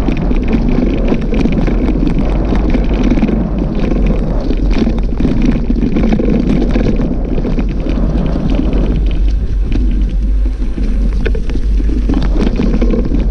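Wind rushing over the microphone, with a steady low rumble and a constant patter of small knocks and rattles from a bicycle riding over a rough dirt track.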